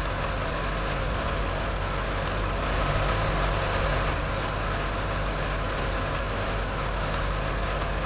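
Truck engine sound effect running steadily: a low, even engine drone with a noisy hiss over it.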